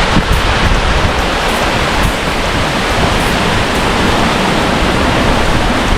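Waterfall: falling water making a loud, steady, unbroken rush.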